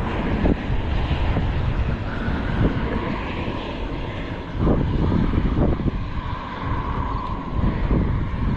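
Strong gusty wind buffeting the microphone, a low rumbling noise that swells with gusts about five seconds in and again near the end, over a faint steady drone.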